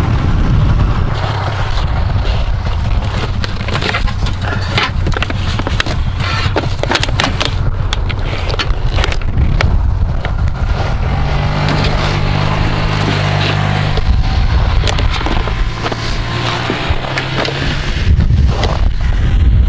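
Snowmobile running steadily across lake ice while towing a plastic sled, with the sled's runners scraping and rattling over the snow and wind rumble on the microphone.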